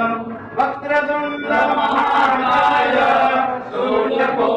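Several voices chanting a Hindu prayer together in long, sustained notes, briefly dropping off about half a second in and again near the end.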